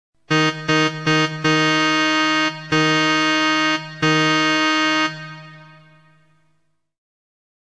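A single electronic tone repeated at one pitch in a pattern of short and long sounds: four short notes, then three long notes of about a second each, the last one fading away.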